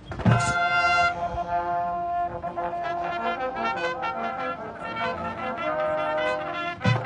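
College marching band starting to play: a loud brass chord with a drum hit about a quarter second in, held for about a second, then the brass plays a moving melody over drums.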